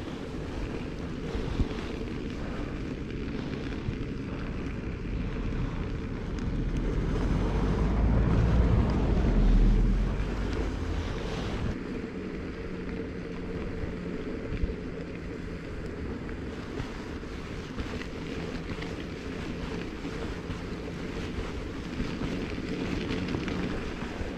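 Wind noise on the microphone over a low rumble that grows to its loudest about nine seconds in and then drops away.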